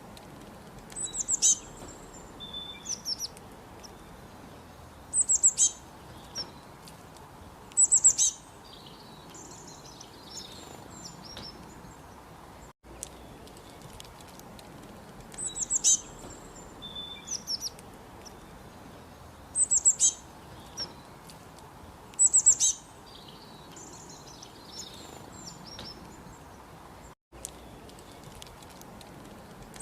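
Songbirds singing: short, loud, high chirping phrases every few seconds with softer twittering between them, over a faint steady background noise. The same sequence of calls seems to repeat about halfway through.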